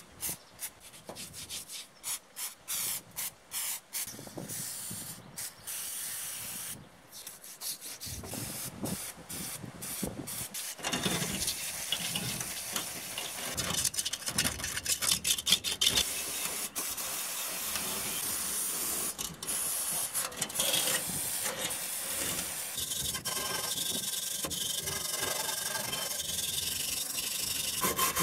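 Metal scraper scratching rust and caked dirt out of the inside of a rusty steel electric-motor end cover. Scattered clicks and taps come first; from about a third of the way in the scraping turns dense and continuous.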